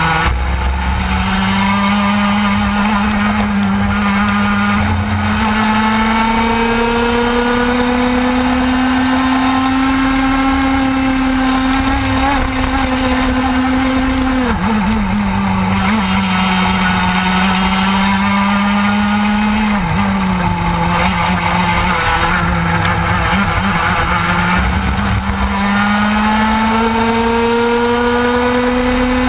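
A TKM Extreme kart's 100cc two-stroke engine, recorded on board, running at full throttle. Because the kart is direct-drive with no gearbox, its note climbs slowly with road speed along the straights. About halfway through the note drops sharply as the driver lifts and brakes, dips briefly again a few seconds later, and then climbs once more.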